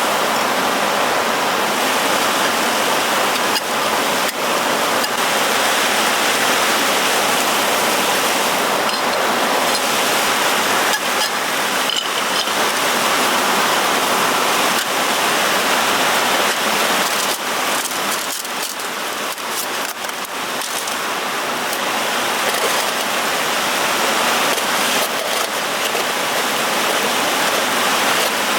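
Steady rushing of a mountain stream flowing through a gorge, with scattered faint clicks in the second half.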